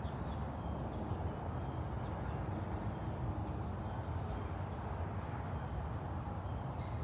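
A steady low rumble of outdoor background noise, with a few faint high chirps now and then.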